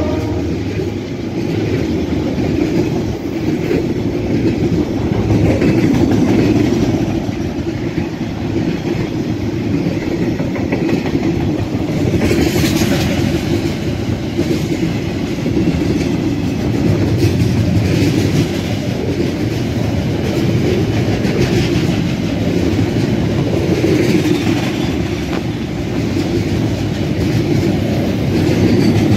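A long freight train of container and tank-container wagons rolling past close by, with steady wheel-on-rail noise. The trailing DL-class diesel locomotive goes by at the start.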